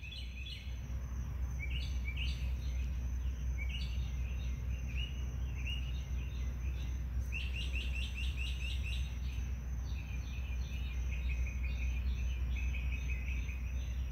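Night chorus of high chirping in runs of short, quick notes, some runs about eight notes a second, over a steady low hum.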